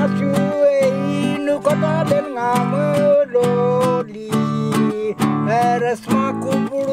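Acoustic guitar strummed in a steady rhythm, with a voice singing a melody over it.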